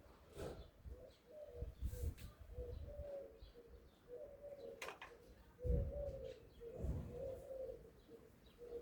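Pigeons cooing repeatedly in a low, wavering tone, with several dull low thumps and a single sharp click about five seconds in.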